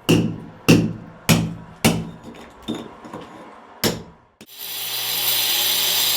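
A series of about six sharp knocks, roughly half a second apart, each with a short ring. About four and a half seconds in, they give way to a steady hiss with a low hum.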